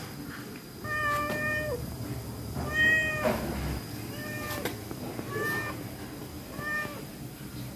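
Hungry pregnant stray cat meowing five times, the first meow long and level, the later ones shorter.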